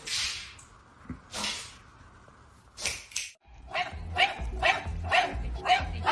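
A dog barking over and over, about two barks a second, starting a little before the four-second mark. Before that there are a few short noisy bursts.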